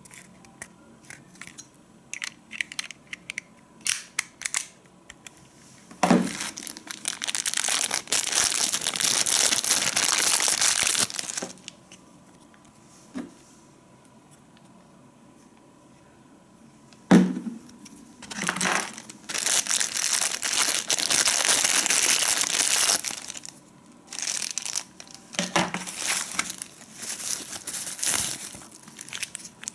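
Thin plastic packaging bags crinkling and rustling in three long spells as small plastic parts are unwrapped, with scattered light clicks of the parts being handled before the first spell.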